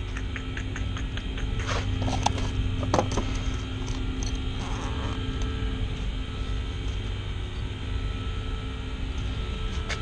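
Steady low hum of running equipment in a mechanical room, with a few sharp metal clicks of tools being handled about two to three seconds in.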